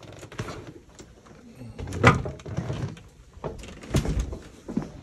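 A door being opened, with a sharp clunk about two seconds in and a second, softer clunk about four seconds in.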